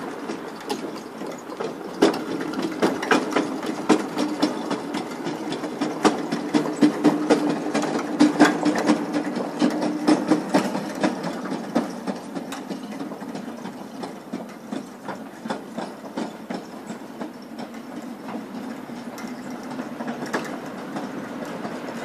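Footsteps on concrete pavement, about two to three a second, clicking over a steady hum that stops about halfway through; the steps grow fainter in the second half.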